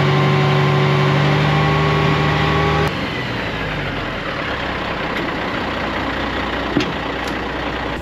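Kenworth T800 dump truck's diesel engine running with the hydraulic hoist raising the dump bed, a loud steady hum that drops off suddenly about three seconds in, after which the engine idles. A single sharp click comes near the end.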